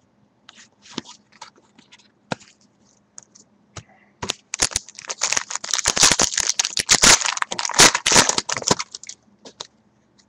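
Trading-card pack wrappers being handled: a few light clicks and rustles, then about four and a half seconds of loud, dense crinkling of the foil wrapper.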